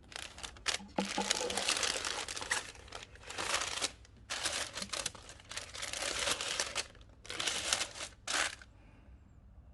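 Wrapping on a packaged bathrobe crinkling as it is handled, in repeated bursts that stop near the end.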